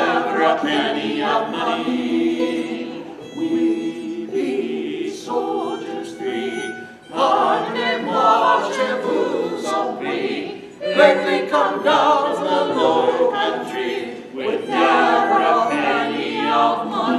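Several voices singing together in parts, phrase by phrase, with brief breaks between phrases about seven and eleven seconds in.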